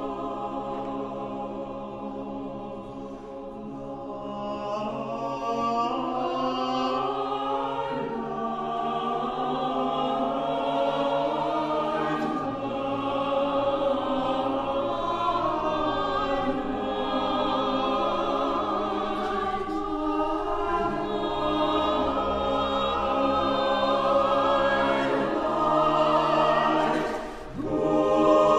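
Mixed SATB choir singing a slow piece in sustained, close harmony, gradually growing louder over most of the passage, with a brief drop about 27 seconds in before returning at full strength.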